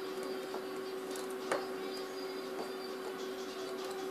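Small plastic clicks as the catches of a Mercedes A-Class W169 instrument cluster's LCD mount are worked to free the screen, with one sharper click about a second and a half in, over a steady faint hum.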